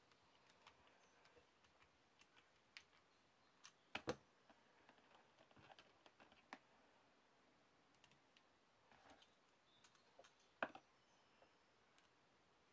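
Faint scattered clicks and taps of a screwdriver and small plastic parts being handled while screws are driven into an RC crawler's plastic transfer case housing, with two louder clacks, about four seconds in and after ten seconds.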